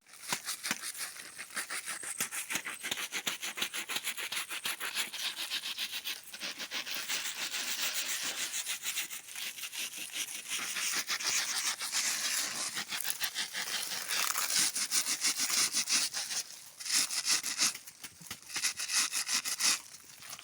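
Rapid, rhythmic rubbing or scraping, several strokes a second, with a few brief pauses.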